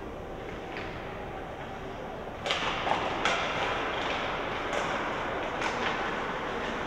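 Ice hockey rink play: steady arena noise, and from about two and a half seconds in a series of sharp clacks and scrapes from sticks, puck and skates on the ice.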